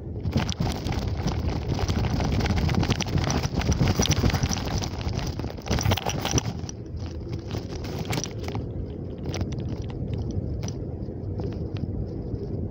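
Wind rushing over the microphone of a phone on the move, with knocks and rattles as the phone is jostled. The rush is loud at first and eases off about six and a half seconds in, leaving scattered knocks.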